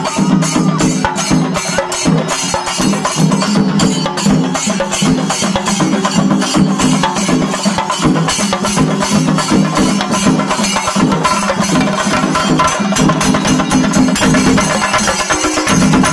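Singarimelam percussion ensemble playing loud and fast: chenda drums beaten with sticks in a rapid, driving rhythm, with ilathalam hand cymbals clashing over them.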